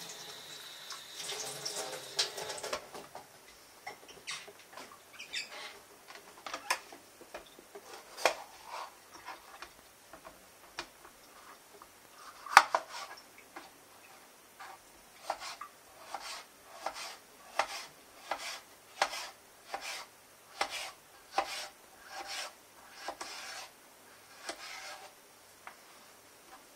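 Tap water running briefly at the sink, then a knife slicing a red bell pepper on a plastic cutting board: a string of sharp knocks of the blade on the board, at times one to two a second, with one louder strike about halfway through.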